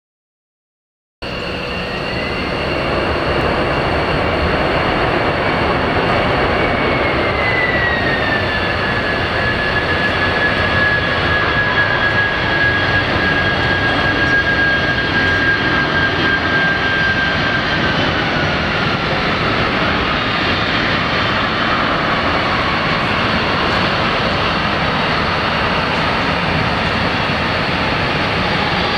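Boeing 767-300 jet engines during the landing rollout: a loud, steady rush that starts abruptly about a second in, with a high whine that drops in pitch in two steps as the engines spool down and the airliner slows.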